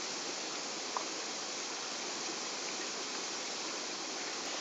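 Steady rushing of a stream flowing over rocks, with one faint tick about a second in.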